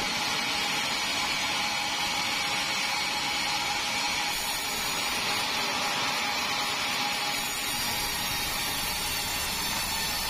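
Large sawmill band saw running steadily: an even hiss with a constant high tone over it, unchanging throughout.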